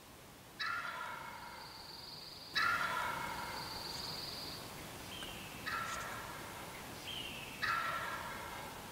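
Male wild turkey gobbling four times, each gobble starting sharply and trailing off.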